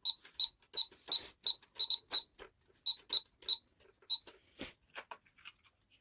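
Toy cash register beeping as its keys are pressed: about a dozen short, high, identical beeps in quick, irregular succession, each with a key click. They stop after about four seconds, followed by a few plastic clicks.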